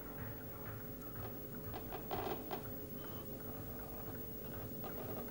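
A door slowly opening: faint creaking with scattered small mechanical clicks over a faint steady hum.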